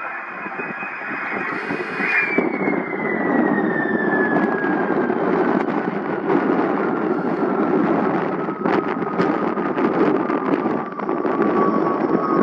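Jet aircraft engine running over a steady rushing noise. Its high whine holds steady, then slides down in pitch from about two seconds in, as a jet does when it passes by.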